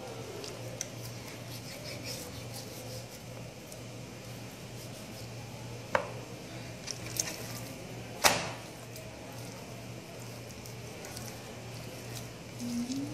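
Quiet handling of a raw deboned chicken on a plastic cutting board over a steady low hum, with two sharp knocks about six and eight seconds in.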